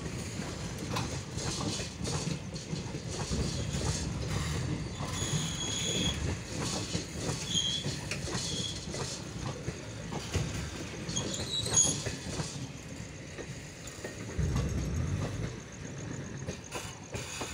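Passenger coaches of the 15131 Gorakhpur–Varanasi Express rolling past as the train pulls out of the station. There is a steady rumble, clicks of the wheels over the rail joints, and a few brief high squeals. The rumble eases near the end as the last coach goes by.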